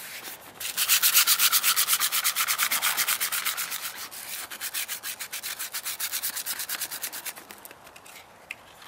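Coarse sandpaper rubbed by hand over the flat black paint of a motorcycle helmet shell, in quick back-and-forth strokes several times a second. The strokes start about half a second in and grow softer toward the end.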